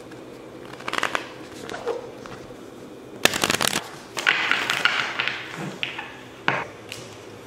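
A deck of game cards being shuffled by hand and riffled on a wooden table: a few flicks, then a quick rattling riffle a little after three seconds and a longer flutter of cards falling together, ending with a single tap as the deck is squared.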